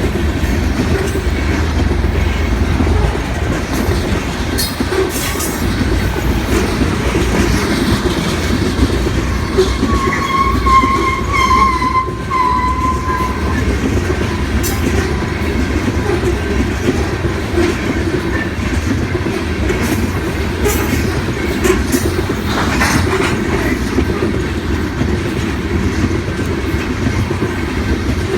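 Loaded coal train's cars rolling past: a steady heavy rumble and clatter of wheels on the rails, with a brief wavering wheel squeal about ten seconds in.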